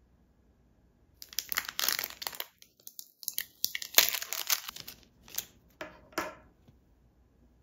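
Clear plastic packaging sleeve crinkling and rustling in irregular crackles as it is pulled off a metal pencil holder. It starts about a second in, has its sharpest snap near the middle, and dies away near the end.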